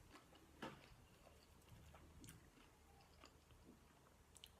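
Faint chewing: soft mouth clicks and small crunches of food being eaten, with one slightly louder click under a second in.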